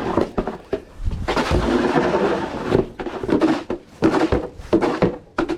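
Snow shovel scraping and pushing snow in repeated strokes: one long scrape lasting over a second, then several short quick scrapes.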